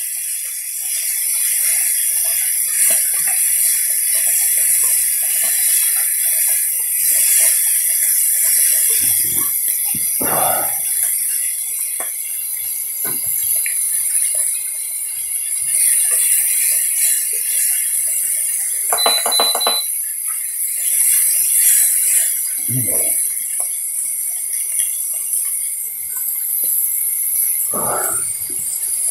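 Beef rib meat sizzling on a hot iron griddle: a steady, dense hiss. A few short low sounds are heard over it, and about two-thirds of the way through there is a brief ringing clink.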